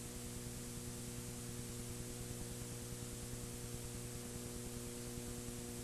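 Steady electrical mains hum with a few higher overtones over a constant hiss, the background noise of an old video recording's audio while the announcer pauses.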